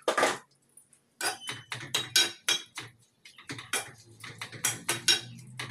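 A metal spoon clinking and scraping against a steel cooking pot while stirring chicken sisig: a loud knock at the start, then a quick, irregular run of clinks.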